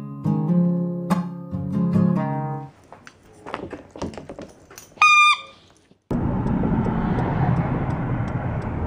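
Acoustic guitar strumming stops, followed by a few knocks and one short squeak from a rubber pig squeaky toy. About six seconds in it gives way to steady road and engine noise heard from inside a moving car.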